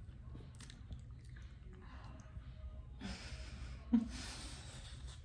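Faint breathing and mouth sounds of a woman eating yogurt off a wooden spoon. Two breathy exhales, each starting with a short hum, come about three and four seconds in, the second running on longer.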